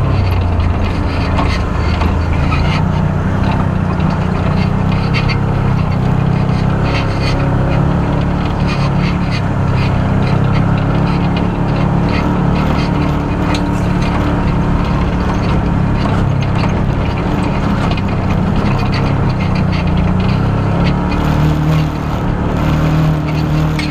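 Off-road side-by-side's engine running steadily as it drives along a rutted dirt trail, with frequent small knocks and rattles from the bumps.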